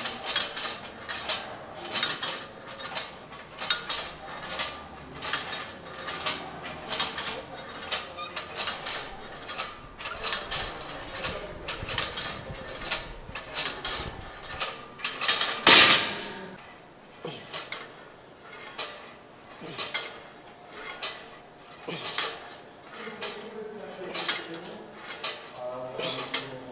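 Rhythmic mechanical clicking and clanking, about two a second, with one much louder bang about 16 seconds in.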